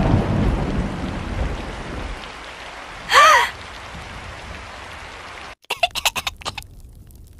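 Steady rain, with a low rumble of thunder dying away over the first two seconds. About three seconds in comes a short high cartoon voice cry that rises and falls in pitch. Near the end the rain cuts off and a quick run of sharp clicks follows.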